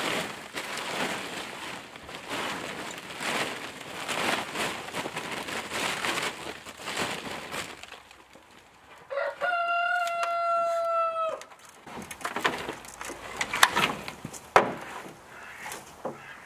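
Plastic tarp crinkling and rustling as it is pulled and tucked into place. About nine seconds in, a rooster crows once, a steady call lasting about two seconds, followed by a few sharp knocks and rustles.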